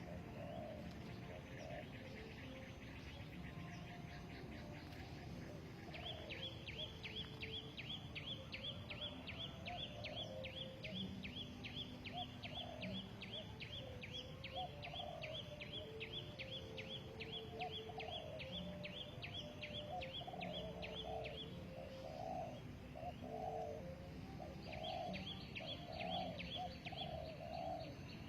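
Spotted doves cooing, a string of low repeated coo notes that come more often toward the end. Over them, a fast high-pitched pulsing trill starts about six seconds in, stops for a few seconds and comes back near the end.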